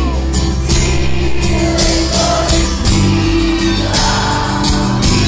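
Live pop-rock band playing through a festival PA, heard from within the crowd: drums and cymbals keep a steady beat over held bass notes and guitars.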